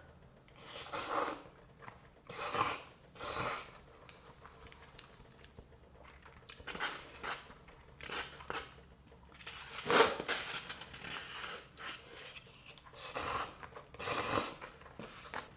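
Close-miked eating sounds: loud slurps of black bean noodles and chewing, in several separate bursts. Near the end come two slurping sips from a small cup.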